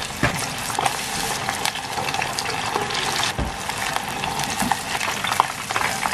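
Vegetable tempura deep-frying in a small pot of hot oil: a steady, crackling sizzle full of small sharp pops.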